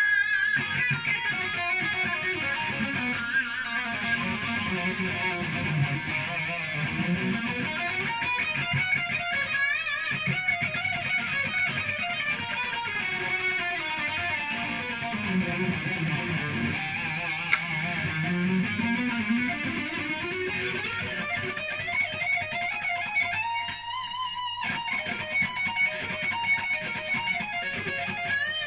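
Electric guitar played lead-style through a Marshall JCM900 amp with a Plexi-style overdrive pedal, chorus and delay, on a Jackson guitar. Notes sustain and ring into one another, with slow sweeping pitch glides and one long held note near the end.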